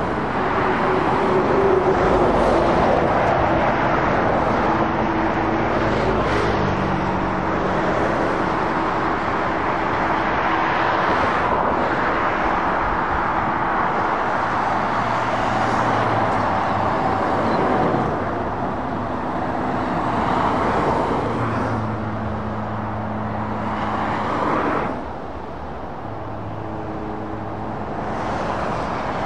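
Motorway traffic: lorries and cars passing one after another, a steady tyre rush with the low hum of heavy diesel truck engines rising and fading as each vehicle goes by.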